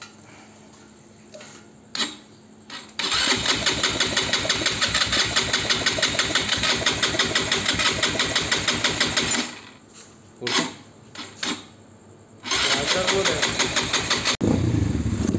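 Petrol ATV buggy engine being cranked on its electric starter: a long spell of fast, even cranking about three seconds in, two short tries, then another crank, and the engine catches and runs near the end. These are the first start attempts after the engine mounts were rebuilt.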